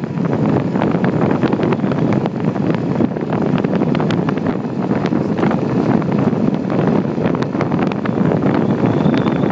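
Wind buffeting the microphone on a moving e-bike: a loud, steady rushing with constant rapid crackling gusts.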